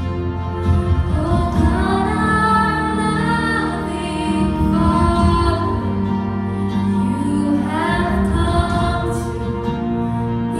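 Live worship band playing a slow song, a woman singing the lead melody over acoustic guitar, bass and violins.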